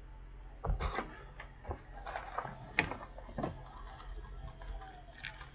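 A sealed trading-card box being opened and handled by hand: a run of sharp cardboard taps, clicks and plastic crinkles, busiest from about a second in to the middle, then lighter rustling.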